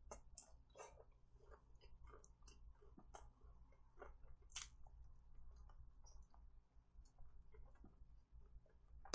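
Close-miked, quiet chewing of a fried chicken drumstick: irregular wet lip smacks and mouth clicks as meat is bitten and pulled off the bone and chewed.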